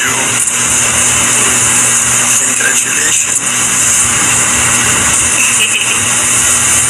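A window-type air conditioner running: a steady loud hiss with a low hum underneath.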